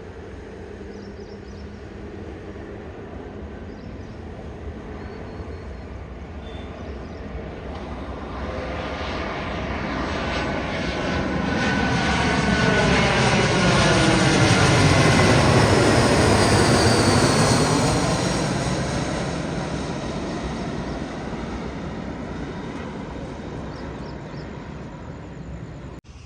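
Airliner on final approach passing low overhead to land: engine noise builds from about eight seconds in, is loudest about halfway through, then fades away as it passes.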